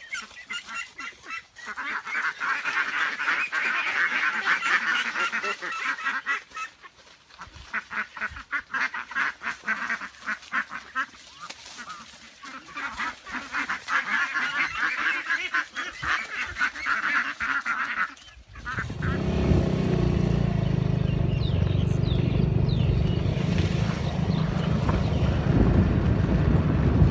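A flock of domestic fowl calling together, many rapid overlapping honks and quacks. About eighteen seconds in, the calls give way to a loud, steady low rumble.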